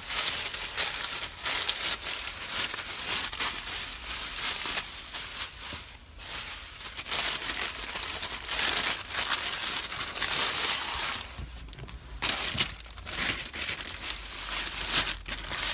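A sandwich's paper wrapping and a plastic carrier bag being handled and unwrapped: continuous irregular crinkling and crackling, with brief lulls about six seconds in and again about eleven seconds in.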